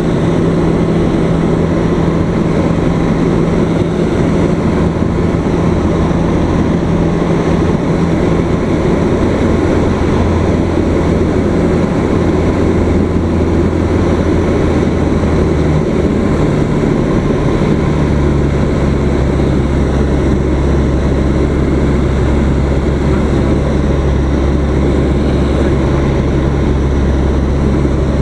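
Single-engine propeller airplane's engine and propeller droning steadily, heard from inside the cockpit. About two-thirds of the way through, the engine note shifts a little lower.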